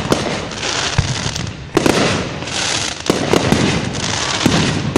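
Fireworks going off: sharp bangs roughly every second or so over a steady crackling hiss.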